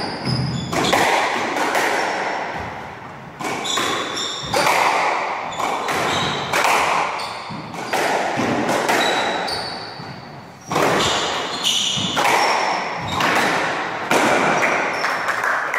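A squash rally: the ball smacking off rackets and the court walls in sharp, echoing knocks roughly once a second, with short high squeaks from shoes on the wooden floor.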